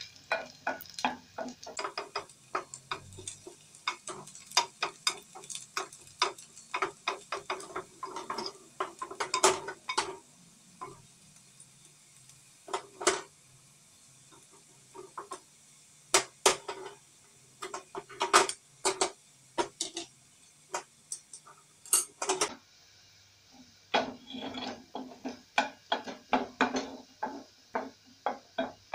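Wooden spoon knocking and scraping against an aluminium pot while stirring onions frying in it: irregular clatters, dense for the first ten seconds or so, sparse through the middle, then busy again near the end.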